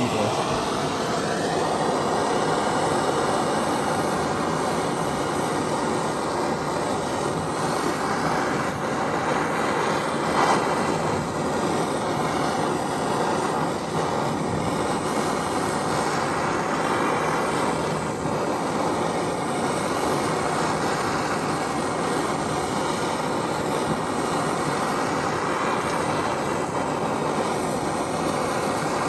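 Handheld gas torch flame burning with a steady roaring hiss, heating a seized nut to break it loose.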